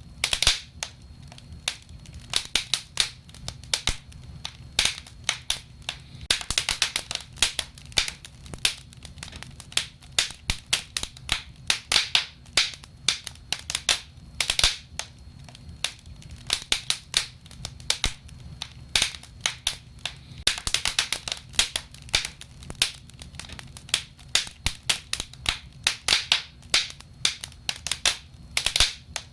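Logs burning in a fireplace, crackling and snapping: irregular sharp pops, many in quick clusters, over a faint low rumble of the flames.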